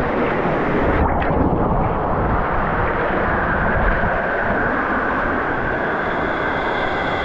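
Steady roar of Shannon Falls' falling water, loud and close.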